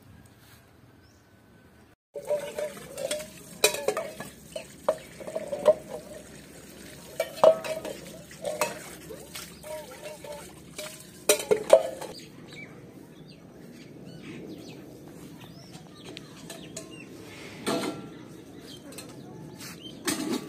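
Steel utensils clanking and ringing against each other as they are washed by hand under a running tap, with the water splashing. The clattering is busiest in the first half, then mostly water with a couple of knocks near the end.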